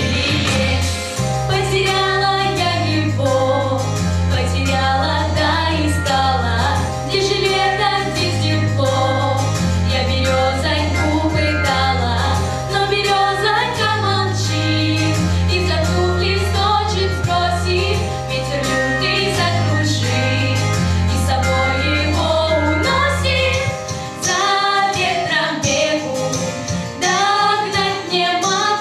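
Vocal ensemble singing a song in female voices over a backing track with a stepping bass line and a beat. The bass drops out near the end while the singing goes on.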